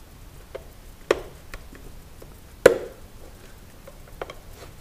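Snap-in tabs of a Sub-Zero refrigerator dairy compartment clicking as a metal putty knife pries the parts apart: several short sharp clicks, the loudest about two and a half seconds in.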